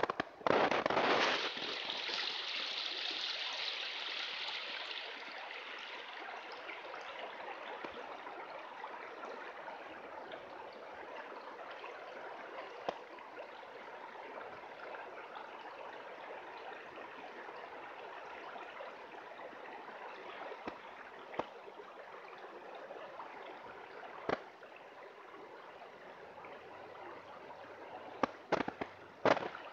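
Shallow gravel-bed creek water running steadily. A loud rush of noise in the first second and a half, and a few short sharp knocks later on, clustered near the end.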